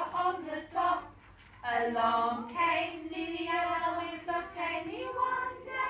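Young children singing a song together, with a short pause between lines about a second in.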